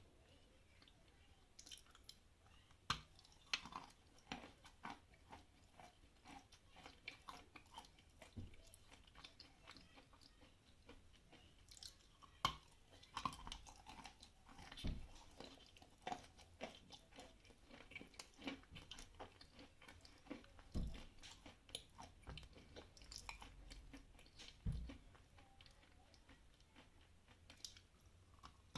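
Someone chewing a piece of Khrapovsky edible chalk: a run of small, irregular crunches, with a few louder bites as it breaks apart.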